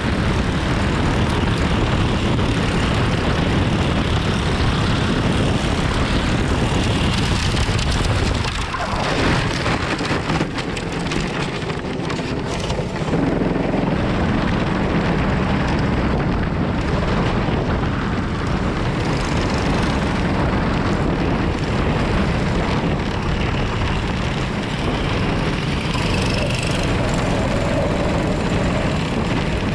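Racing go-kart's Predator 425 single-cylinder engine running at race speed, heard from an onboard camera. About a third of the way in, the sound dips and breaks up for a few seconds with a few knocks, then picks back up.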